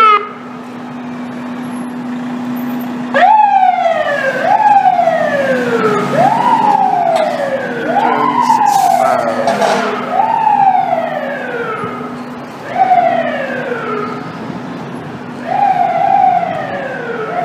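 Seagrave fire engine's siren wailing on a run, each cycle a quick rise in pitch followed by a slower fall, repeating about every second and a half, over a steady low hum and traffic noise.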